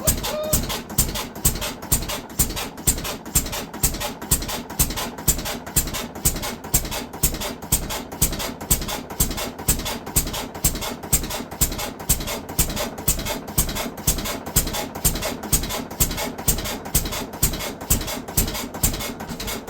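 6 HP Fairbanks Morse hit-and-miss engine running after starting, its exhaust going off in a steady beat of about two to three sharp firing pops a second.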